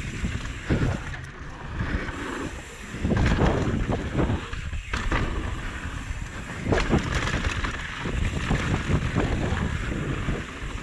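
Mountain bike ridden fast down a dirt trail: wind noise on the camera's microphone and tyre rumble, with repeated sharp knocks and rattles from the bike over roots, bumps and wooden planks.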